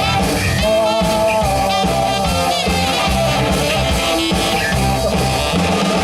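Live band playing rock music without a break.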